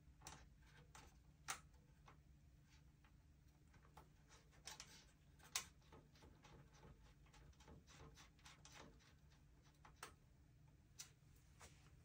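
Faint, irregular clicks and ticks of a hand screwdriver turning motherboard screws into a metal PC case, the sharpest about a second and a half and five and a half seconds in.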